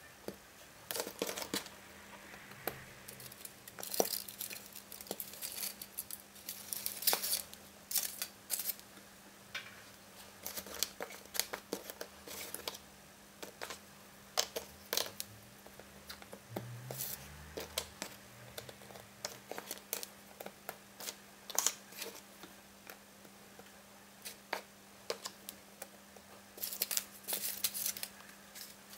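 Cardboard jigsaw puzzle pieces picked up, slid and pressed into place on a wooden table: a scattered series of sharp clicks, taps and rustles. Near the end comes a dense burst of crinkling as the foil-wrapped plastic half of a Kinder Joy egg is handled. A faint steady hum sits underneath.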